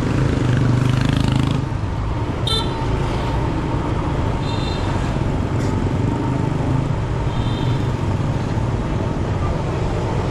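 City street traffic: a steady engine and road rumble, with short, high vehicle-horn beeps about two and a half seconds in, again a couple of seconds later, and once more near the end.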